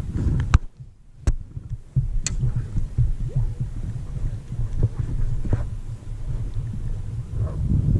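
Wind buffeting the microphone: an uneven low rumble that grows louder about two seconds in. A few sharp knocks come in the first couple of seconds.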